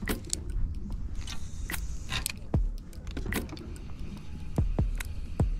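Spinning reel being cranked to retrieve a lure, with small clicks and rattles of the reel and rod handling, and a few short low thumps.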